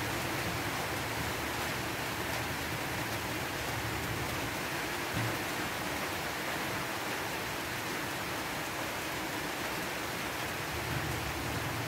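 Heavy rain falling, a steady even hiss, with one soft knock about five seconds in.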